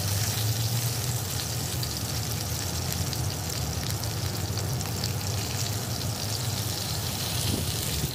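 Pork belly slices frying in oil in a wok: a steady sizzle with fine crackles, over a low steady hum.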